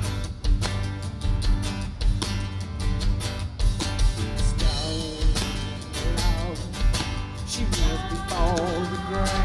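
Live rock band playing an instrumental passage: drum kit keeping a steady beat under electric guitars and a bass guitar. A held note wavers in pitch about five seconds in and again near the end.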